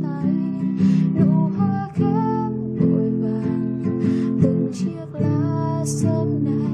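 Classical nylon-string guitar played solo, a picked melody over sustained bass notes.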